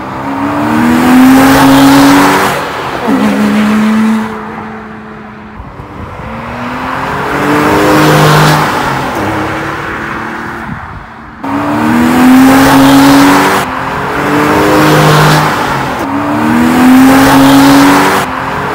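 Porsche 911 (997) flat-six engines accelerating hard past in a run of drive-bys, one after another. Each pull climbs in pitch and drops back at quick upshifts before climbing again.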